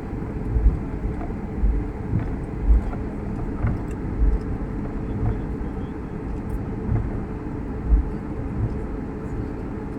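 Airliner cabin noise while taxiing after landing: a steady low rumble with irregular low thumps every second or two.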